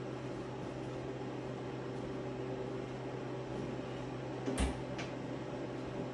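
Steady electrical hum from a running appliance. There is a single knock about four and a half seconds in, like a door or panel being shut, then a fainter click.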